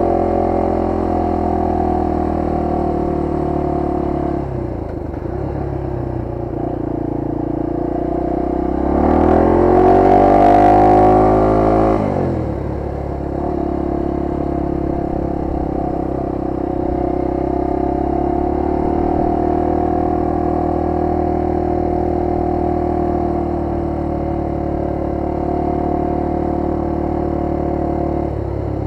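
1998 Honda XR250R's single-cylinder four-stroke engine running under way at a steady pitch. About nine seconds in it revs up, rising in pitch and at its loudest, then drops off sharply at about twelve seconds as the throttle is closed. It then settles back to steady cruising.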